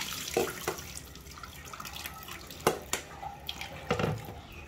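Tap water pouring through grated potato in a mesh strainer into a stainless steel sink stops within the first half-second, leaving water dripping from the strainer into the sink, with two sharper clicks, one past the middle and one near the end.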